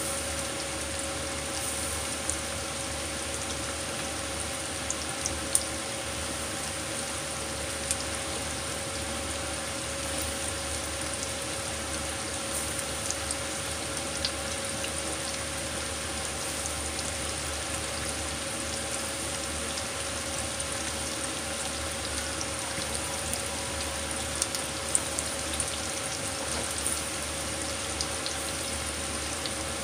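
Coated chicken thigh pieces (karaage) sizzling steadily as they deep-fry in hot oil in a frying pan, with a few scattered sharp pops.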